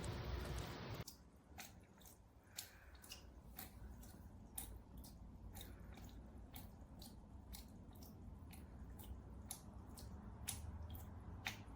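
Water from a solar fountain pump's spray falling into a bird bath in irregular drips and small splashes, two or three a second, after about a second of steady hiss.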